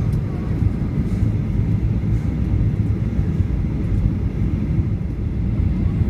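Cabin noise of a Ryanair Boeing 737-800 heard from a window seat on the approach: a steady low rumble of engines and rushing air.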